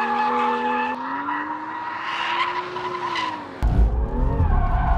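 BMW M2 drifting: tyres squealing in steady high tones over the engine. About three and a half seconds in, the engine heard from inside the cabin comes in loud, revving up and down.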